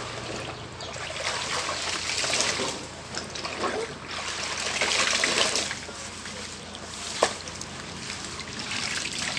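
Wet sheer curtain being hand-rinsed in a plastic basin of soapy water: water sloshing, splashing and dripping in repeated swells as the cloth is lifted, squeezed and dunked. A single sharp click sounds about seven seconds in.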